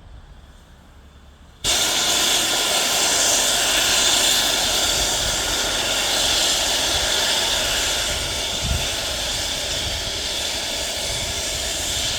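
Steam locomotive letting off steam: a loud, steady hiss that starts abruptly about two seconds in and holds without a beat.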